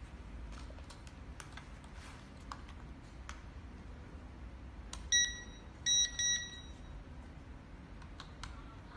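High-pitched electronic beeps from the IDEA10 GPS drone's remote controller as it is switched on and pairs: one beep, then a quick double beep about two-thirds of a second later. Faint handling clicks come before them.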